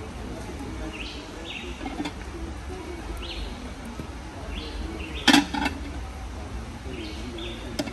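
A bird calling over and over, a short two-part call roughly every two seconds, over a steady low outdoor rumble. About five seconds in there is one sharp knock on the plastic cutting board, followed by a couple of lighter clicks.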